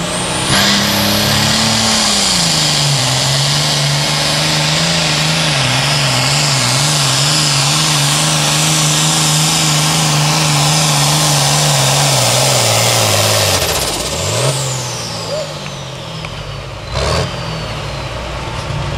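Super farm class pulling tractor's turbocharged diesel at full throttle under the sled's load. Its pitch sags in the first few seconds, then holds high and wavering, and drops sharply about 14 seconds in as the throttle closes, with a high whistle falling away. A sharp knock comes near the end as the engine settles lower.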